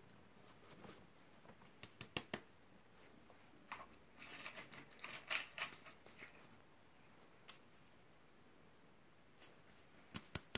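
Faint crunching and clicking of a cat chewing hard supplement tablets off a rug, a few scattered crunches with a denser run about four to six seconds in.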